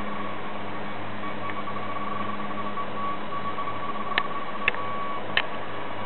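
Steady electrical hum with a thin high whine. Near the end, three short sharp clicks come in just over a second.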